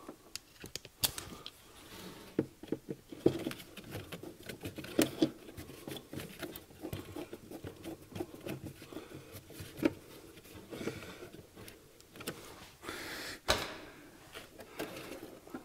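Hands working inside an electrical relay box, making irregular light clicks, taps and handling noise from plastic parts and wiring as a relay is fitted and secured.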